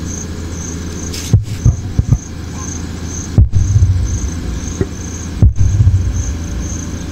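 Large subwoofer sound system with 18-inch bass boxes playing deep, throbbing bass during a sound check, the low end pulsing in a repeating pattern and cutting out briefly about every two seconds.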